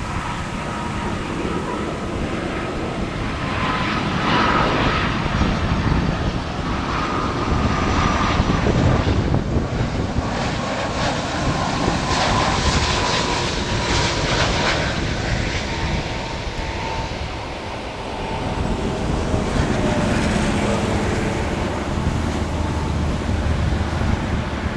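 Airbus A330-200 twin-jet airliner flying low past on landing approach: a steady jet engine rumble with a whine that slowly falls in pitch as it goes by, loudest about halfway through. The sound dips briefly, then swells again near the end as the aircraft reaches the runway.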